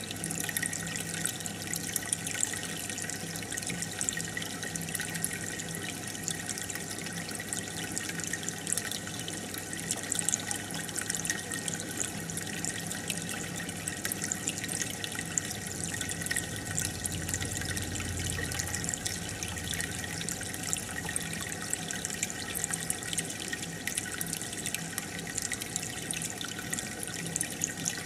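Aquarium water trickling and bubbling steadily, with a faint steady hum underneath.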